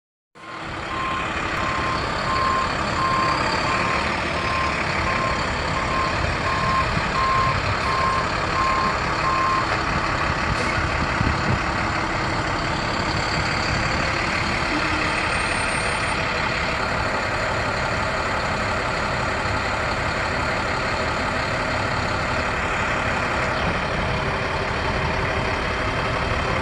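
2009 International 4300 bucket truck with its DT466 turbo diesel running, its reverse alarm beeping at an even pace for roughly the first ten seconds.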